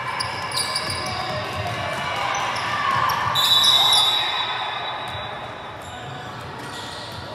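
Basketball game sounds on an indoor court: the ball bouncing and knocking, with scattered spectator voices. A short high squeal about three and a half seconds in is the loudest moment.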